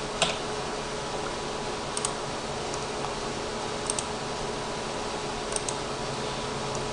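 A few sparse single and double clicks of computer keyboard keys, about two seconds apart, over a steady background hiss and faint hum.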